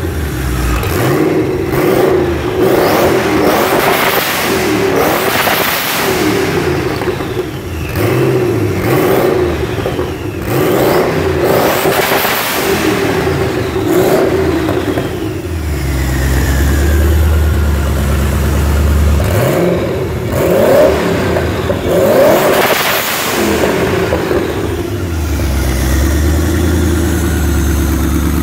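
Twin-turbocharged Mercedes-Benz M119 V8 running on its first start-up: repeated throttle blips send the revs up and back down through the first half, and a faint whistle falls away after several of them. Around sixteen seconds in it settles to a low idle, is revved twice more around twenty to twenty-three seconds, then idles again.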